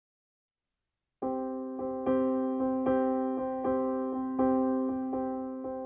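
Background music on piano, starting about a second in: a gentle, even run of struck notes over a held chord.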